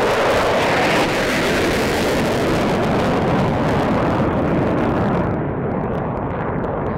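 F-22A Raptor's twin Pratt & Whitney F119 turbofans running in afterburner: a loud, rough jet noise as the fighter passes on takeoff and climbs away. About five seconds in, the hiss at the top drops away and the sound dulls as it recedes.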